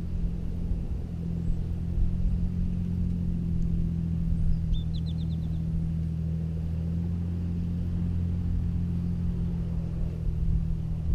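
A steady low engine hum that holds one pitch throughout. About five seconds in, a bird gives a brief high trill of five or six quick notes.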